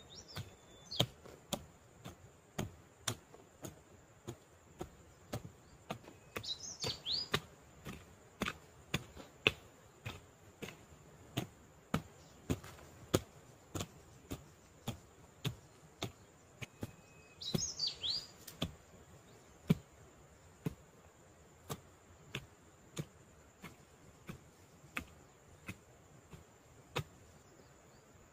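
A hoe chopping into soft soil in a steady rhythm, about two strikes a second. Birds chirp briefly three times, near the start, about a quarter of the way in and about two-thirds through.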